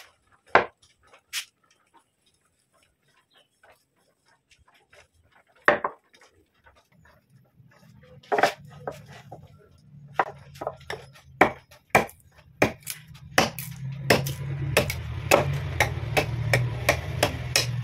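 Wood being struck: sharp knocks, sparse at first, then coming about twice a second over a low steady hum that sets in and grows louder about halfway through.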